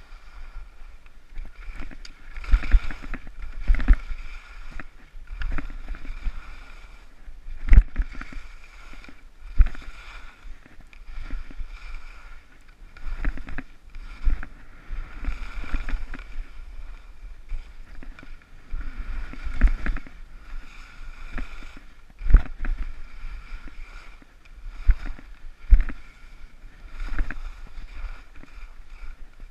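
Skis scraping and hissing over packed snow in a steady rushing noise, broken every second or two by heavy thumps as they ride over bumps, the loudest about 8 and 22 seconds in.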